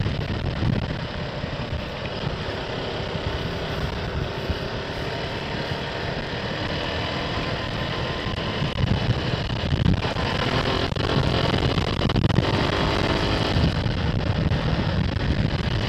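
Motorcycle engine running while riding, picked up by an action camera's built-in microphone along with wind and road noise. The engine note climbs a few times about ten to twelve seconds in.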